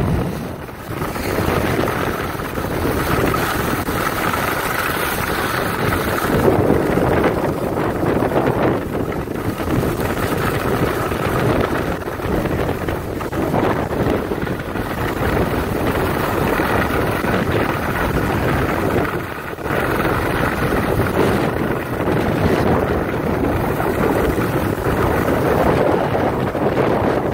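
Wind rushing over a phone's microphone as a skier moves fast downhill, mixed with the steady hiss and scrape of skis sliding on snow.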